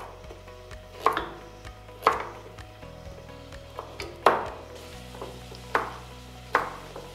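Kitchen knife slicing carrots into chunks on a wooden cutting board, each cut ending in a sharp knock on the board, about once a second.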